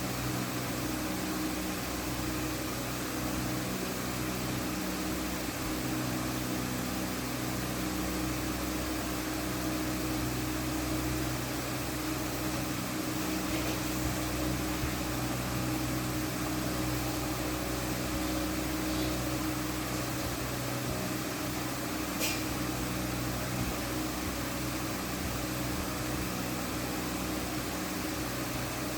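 Electric fan running steadily: an even motor hum with airflow hiss. One brief click about twenty-two seconds in.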